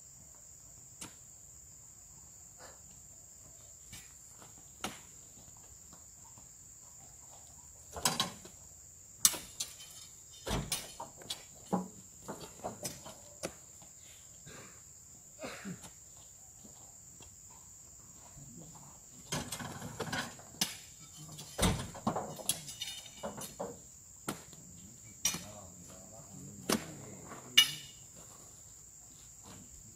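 Steady high insect drone, with irregular thuds, knocks and rustles as oil palm fruit bunches are lifted on a spike pole and thrown up onto a truck's load. The knocks come in clusters, the loudest near the end.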